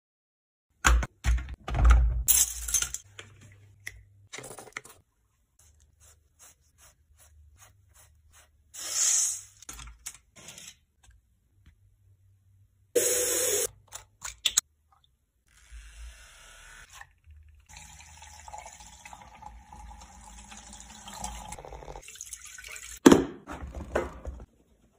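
Water and handling sounds at a bathroom sink while makeup brushes and beauty sponges are washed: a tap running, splashing and wet rubbing in irregular bursts. Near the end comes a loud knock as items are tipped into a plastic tub.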